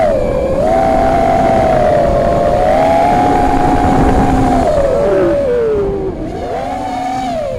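FPV racing quadcopter's brushless motors whining, the pitch wavering with throttle changes. About five seconds in the pitch slides down as throttle is cut, and the whine stays quieter and lower near the end.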